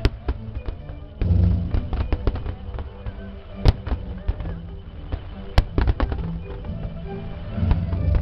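Aerial fireworks going off in quick succession: repeated sharp bangs and crackles over a low rumble. The loudest reports come right at the start and about 3.7 and 5.6 seconds in. Music plays underneath.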